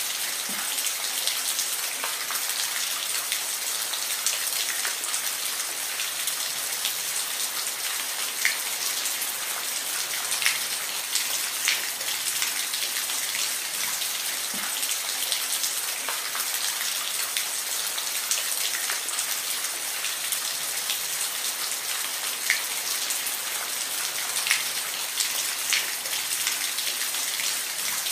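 Steady rain falling, an even hiss with individual drops ticking and pattering against a surface now and then.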